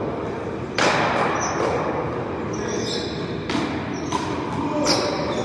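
A one-wall paddleball rally: several sharp hits as the rubber ball is struck by wooden paddles and bounces off the wall, the loudest about a second in. Short high squeaks are mixed in over steady background noise.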